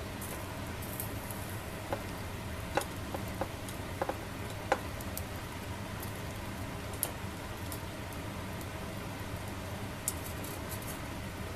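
Squid sizzling on a wire grill net over burning solid fuel: a steady hiss with scattered sharp pops and ticks, a cluster of them in the middle.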